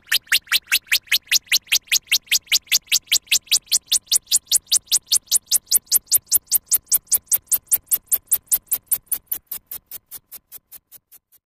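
Synthesized futuristic sound effect: a fast, even train of sharp electronic ticks, about six a second. The ticks grow thinner and brighter, then fade away over the last few seconds.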